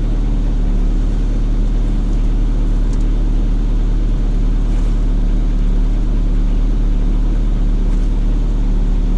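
Daewoo Sens car engine idling steadily during a diagnostic scan, with an even low hum and no fault showing.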